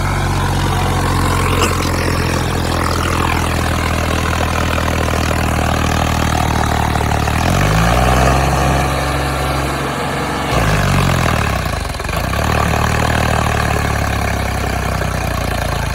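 Sonalika DI 35 tractor's diesel engine labouring under load while dragging a weighted disc harrow. It runs steadily, rises in revs twice around the middle, with a short dip between, then settles back.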